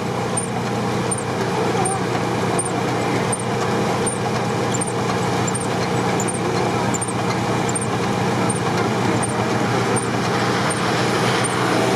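Off-road 4x4s, a UAZ-469 in the lead, driving hard through a flooded, muddy track: engines running under load with water and mud splashing. The sound grows louder as they come closer.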